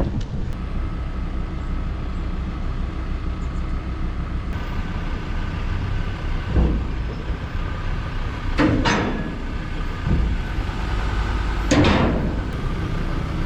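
Steady low rumble of a vehicle with a few faint steady tones, broken by three or four loud clunks in the second half.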